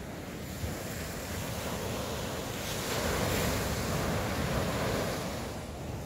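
Sea surf: a wave rolls in and washes up, building for a few seconds and then easing off, with wind on the microphone.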